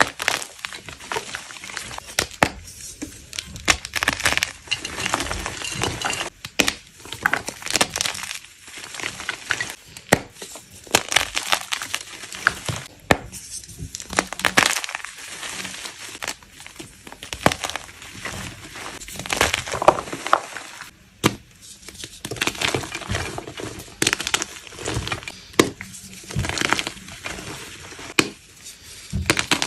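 Blocks of gym chalk being crushed, a dense, irregular run of crunches and crumbling crackles broken by a few short pauses.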